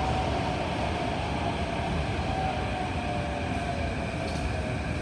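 Interior of an SMRT CT251 metro train running through a tunnel: a steady rumble of wheels and running gear with a faint steady whine above it.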